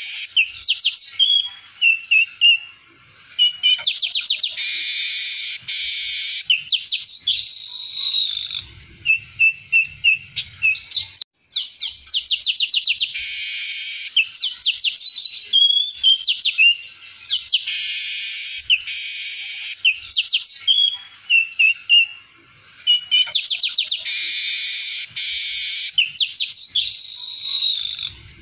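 Male streaked weaver (manyar kembang) singing: a phrase of rapid ticking notes that runs into a long buzzing hiss, followed by short chirps and sliding whistles. The phrase repeats about every five to six seconds, with brief pauses between.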